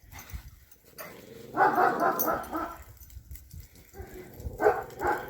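Dog barking: a quick run of barks about one and a half seconds in, then two short barks near the end.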